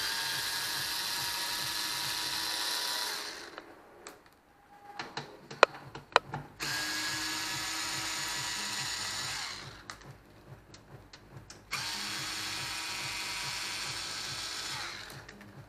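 Small cordless screwdriver with a Torx bit backing out the screws of a sheet-metal machine panel. The motor runs three times for about three seconds each, each run tapering off at its end, with a few sharp clicks between the first and second runs.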